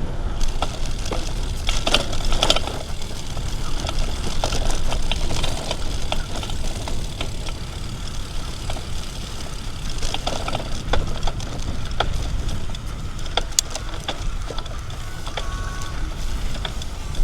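Wind rumbling steadily on a clip-on microphone while a bicycle is ridden, with scattered clicks and rattles from the bike throughout.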